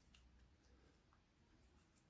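Near silence: faint room tone with a few very faint ticks.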